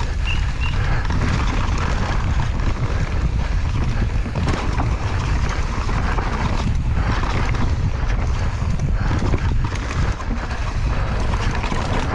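Mountain bike descending a rough dirt trail at speed, heard from a camera on the rider: steady wind buffeting on the microphone and tyre roar, with constant rattling and knocking of the bike over bumps.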